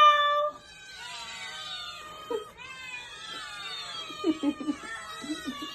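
Several house cats meowing over one another in long, drawn-out, mostly falling meows. They follow a person's sung, held note that ends about half a second in.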